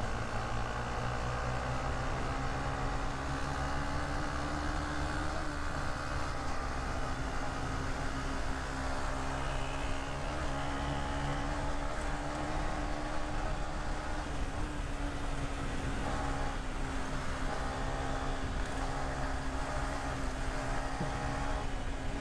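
Single-cylinder four-stroke motorcycle engine running at a steady cruise, heard from the rider's own bike over steady wind rumble on the microphone.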